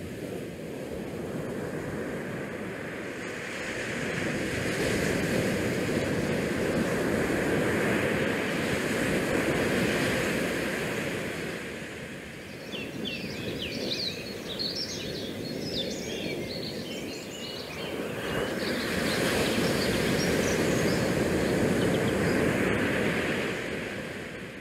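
Wind buffeting the microphone over the rush of the sea along a cruise ship under way, a steady noise that swells and eases over several seconds at a time. A spell of faint high chirps comes through about halfway.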